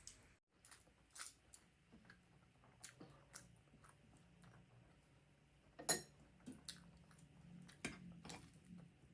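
Close-miked chewing: soft wet clicks and smacks of a mouth eating, with a sharper click about six seconds in and another near eight seconds, over a faint low hum.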